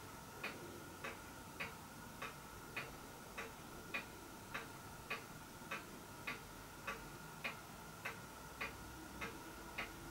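Faint, even ticking, a little under two ticks a second, over a faint steady hum.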